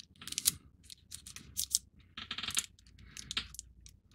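Small clicks, scrapes and short crackles from handling plastic model parts and sticky tape, about six brief sounds spread out with gaps between them.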